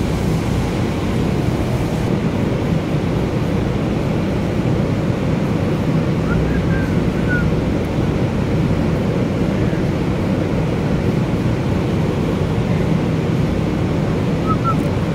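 Steady low rumbling background noise, with a faint high chirp about halfway through and another near the end.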